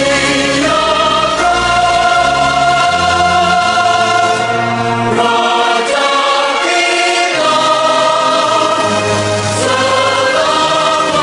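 Choral music: a choir singing long held chords over a slow, stepping bass line. The bass drops out for a moment midway.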